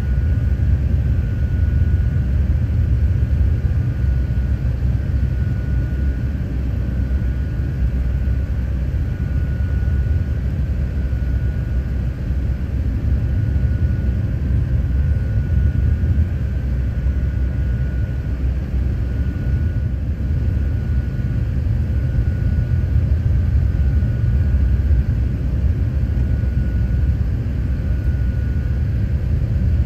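Airliner cabin noise on approach: a steady, deep rumble of jet engines and airflow heard from inside the cabin, with a faint high whine that swells and fades about every two seconds.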